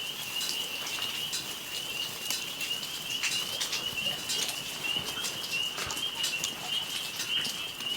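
A steady, high, wavering trill of outdoor wildlife runs throughout, with scattered faint clicks and crackles.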